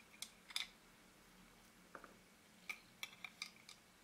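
Faint small metal clicks and taps of a lens tool being handled and fitted against the metal lens barrel. A few scattered clicks, then a quick run of them in the second half.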